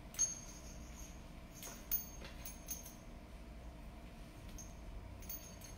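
Faint clicks and small rustling of a puppy mouthing and chewing a toy, with a few sharper ticks about a quarter second in, near two seconds and again near the end, over a low steady hum.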